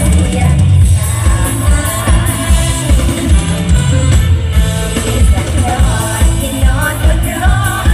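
Amplified live Thai luk thung band music with female singing over a heavy, steady bass beat, heard through the concert sound system from the audience.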